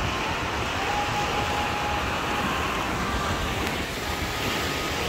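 Steady rushing of surf with wind rumbling on the microphone.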